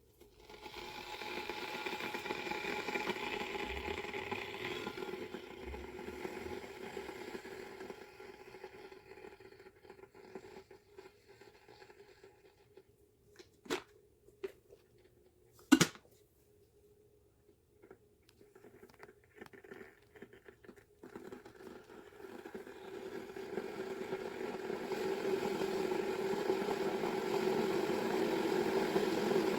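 Electric kettle: a fading rushing noise at first, two sharp clicks about halfway through, then a rushing rumble that grows steadily louder as the water heats.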